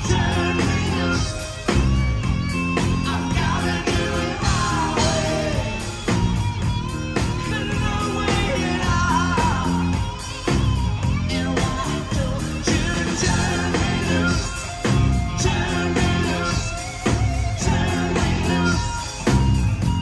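Rock band playing live and loud: electric guitar, bass guitar and drum kit keeping a steady beat, with singing over it.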